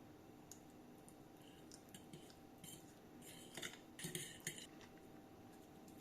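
A metal spoon clinking and scraping lightly against a bowl in a few short strokes, the busiest cluster about three to four and a half seconds in.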